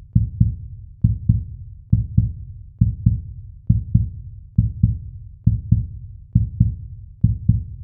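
Heartbeat sound effect: deep double thumps (lub-dub) repeating steadily at roughly 65–70 beats a minute.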